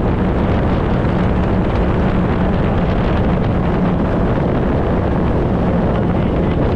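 Jet ski engine running at a steady speed under way, a constant low drone mixed with wind buffeting the microphone.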